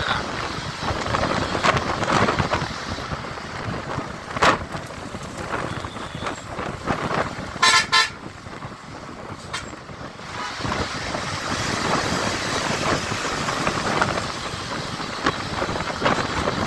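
Traffic noise from a bus moving at speed, with wind on the microphone; about halfway through, a vehicle horn sounds once for about half a second.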